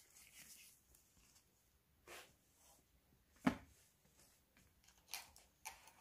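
Handling noise from gloved hands setting up a USB charger, an inline USB meter and a cable: a rustle at the start, a single knock about three and a half seconds in that is the loudest sound, and two short clicks near the end as the parts are fitted together.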